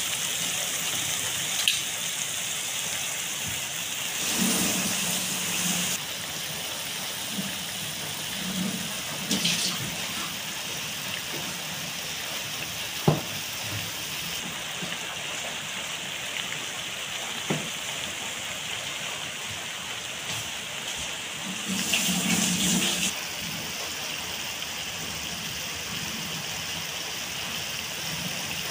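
Squid simmering in a wok in its own bubbling liquid, with a steady sizzling hiss. A sharp click sounds about 13 seconds in and a smaller one a few seconds later.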